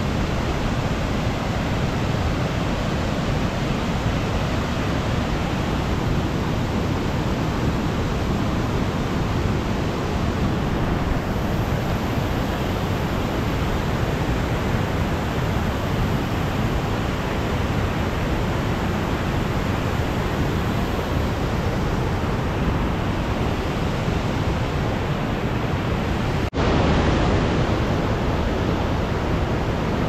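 Steady rush of river water spilling over a rocky cascade. Near the end it breaks off for an instant and resumes slightly louder.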